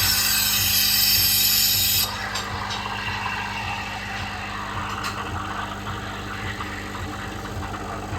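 A machine running with a steady low hum, with a loud hiss over it that cuts off suddenly about two seconds in, leaving a softer rushing noise.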